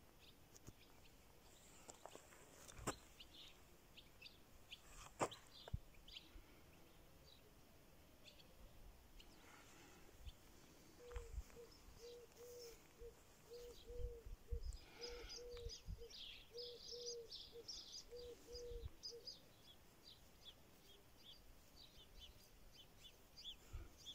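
Faint outdoor ambience of small birds chirping and twittering, with a low hooting note repeated about a dozen times at an even pace in the middle. Two sharp clicks a few seconds in and scattered low bumps.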